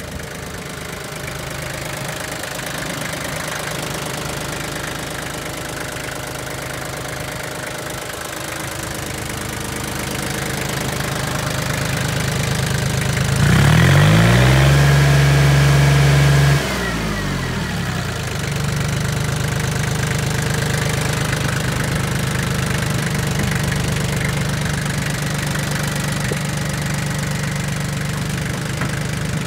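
ISEKI TL2701 compact tractor's diesel engine idling steadily, revved up sharply about midway, held high for about three seconds, then dropped back to idle.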